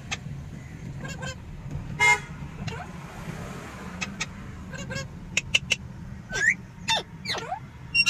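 Alexandrine parakeets calling inside a moving car: short squawks and clicks, a loud nasal call about two seconds in, and quick rising and falling whistles near the end, over the steady hum of the engine and road.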